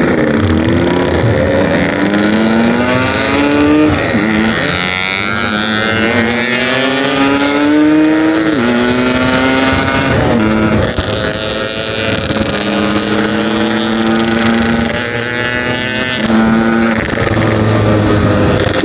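Yamaha RX-King's 135cc single-cylinder two-stroke engine through a Packing Power aftermarket exhaust, accelerating hard: the note climbs in pitch and drops sharply at each gear change, several times.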